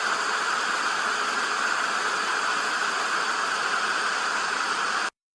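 Steady hiss of static noise, cutting off suddenly near the end.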